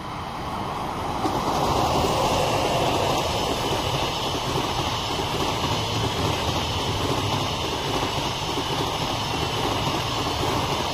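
EP20 electric locomotive and its double-deck passenger coaches passing close by: a steady rush of wheels on rails that builds over the first couple of seconds as the locomotive draws level, then holds as the coaches roll past.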